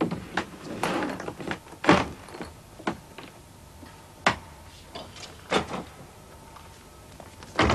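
Ambulance equipment lockers and their metal catches being handled and shut: a run of separate knocks and clunks at irregular intervals, with a louder clunk near the end.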